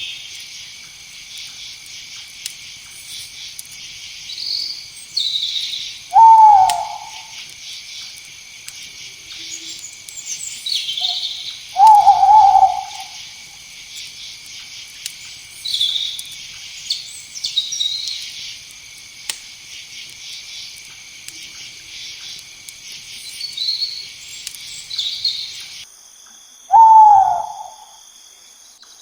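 Night insects trilling in a steady high chorus, with scattered high chirps, while a night bird calls three times, each a short loud note that falls in pitch. The insect chorus cuts off suddenly a few seconds before the end.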